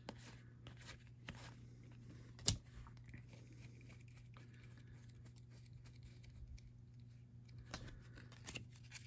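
Baseball trading cards being flipped through by hand: faint card slides and light taps, with one sharper click about two and a half seconds in. A steady low hum runs underneath.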